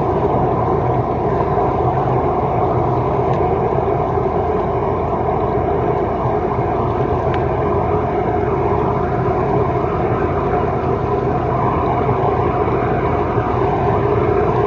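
High-pressure drain jetter running steadily, a constant machine drone with rushing water as the jet blasts built-up cooking fat out of a kitchen waste pipe.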